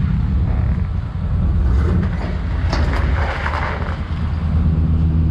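Chevrolet pickup truck's engine running at low speed as the truck creeps up onto a flatbed car trailer, a steady low rumble, with a light knock about two and a half seconds in.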